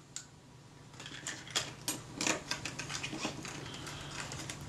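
Small metal camera parts clicking and rattling against a clear plastic parts dish as they are picked through, a rapid, irregular run of light clicks starting about a second in.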